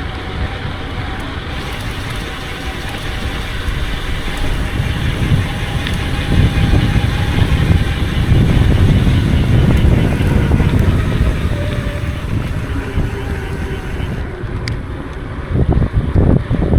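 Mountain bike ridden at speed: wind buffeting the microphone and tyres rumbling over the ground, growing louder a few seconds in, with the rear freehub's steady ratcheting buzz as the bike coasts. A few sharp knocks sound near the end.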